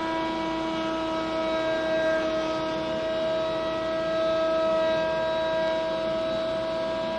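Table-mounted router with a 3/8-inch solid carbide spiral bit running at full speed while cutting a stopped rabbet along the back edge of a wooden stile: a steady whine.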